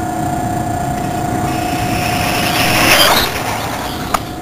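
Electric Losi XXX-S RC car making a high-speed pass: the motor whine and tyre noise build to their loudest about three seconds in, then drop sharply in pitch as it goes by. A steady high hum runs underneath, and a single sharp click comes near the end.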